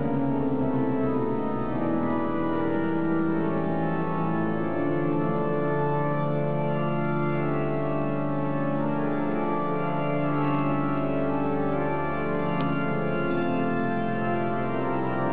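The Berlin Cathedral's pipe organ, the Sauer organ, playing full, sustained chords over a held bass, the harmony shifting every second or two at a steady loudness, heard in the cathedral's large domed interior.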